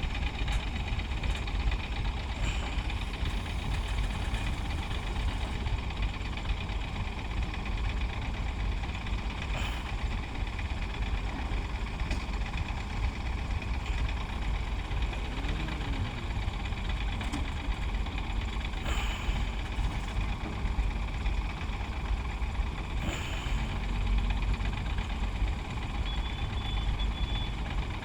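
Heavy diesel engine of earthmoving machinery running steadily with a deep low rumble. A few short knocks stand out about ten, nineteen and twenty-three seconds in.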